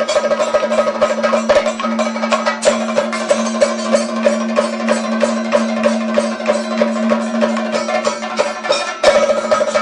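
Kathakali percussion ensemble of chenda drums struck with curved sticks and a hand-played maddalam, drumming a fast, dense rhythm over a steady ringing tone. About nine seconds in the drumming suddenly gets louder and busier.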